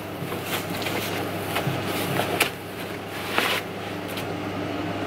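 Scattered rustles and light knocks from hands rummaging in a cardboard box packed with foam, lifting out parts, over a steady low hum.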